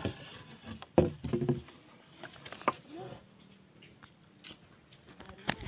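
Insects droning in a steady, high, even tone, broken by a few sharp knocks, the loudest about a second in.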